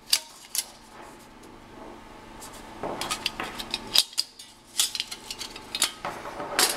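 Thin titanium windscreen sheet and its wire legs handled against a Kovea Spider canister stove: scattered light metallic clicks and clinks, a couple at first, then a quieter stretch, then a denser run of clinks from about three seconds in.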